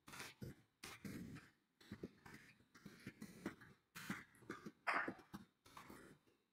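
Faint, irregular clicking of computer keyboard keys as a sentence is typed.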